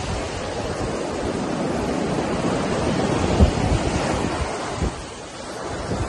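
Ocean surf breaking and foamy water washing up the sand, with wind buffeting the phone microphone in low gusts. The rush swells toward the middle and eases near the end.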